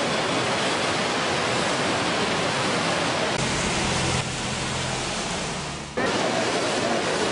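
Steady rushing noise of heavy rain and floodwater. About three and a half seconds in it turns quieter, with a low hum that fades, and then the loud rushing cuts back in suddenly.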